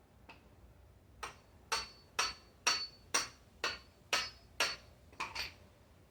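Hammer striking a screwdriver into the soft green husk of a young coconut: about ten sharp taps, roughly two a second, starting about a second in.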